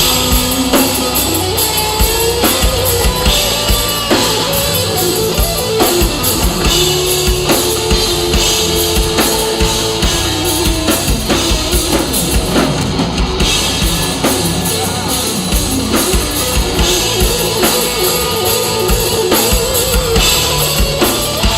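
Rock band playing live: an instrumental stretch with drum kit and bass drum driving a steady beat under guitar holding sustained notes, no vocals.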